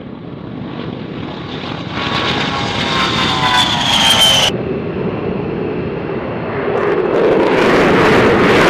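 A-10 Thunderbolt II's twin turbofan engines whining as it takes off and passes, the whine falling in pitch, then cutting off abruptly about four and a half seconds in. Near the end an F-16 jet's engine roar builds up loud as it climbs out.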